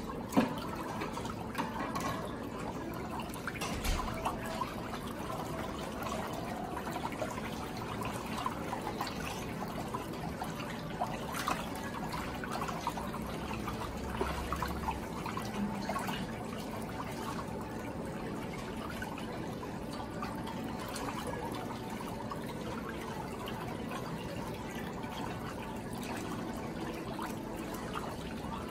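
Pedicure spa tub's whirlpool jets churning the water in the foot basin, with splashing as gloved hands swish through it.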